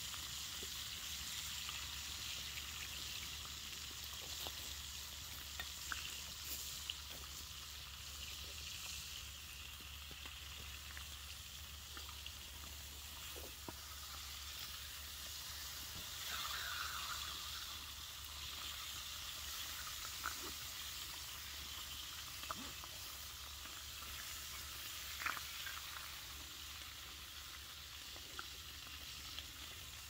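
Smoked back bacon frying in a pan over a wood fire: a steady sizzle with scattered small pops.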